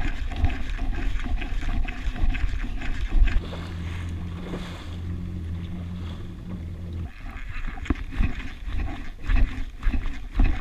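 A 2019 Yamaha WaveRunner FX HO jet ski's engine runs steadily from about three seconds in and cuts off abruptly about seven seconds in. Wind rumbles and buffets on the microphone and water splashes throughout.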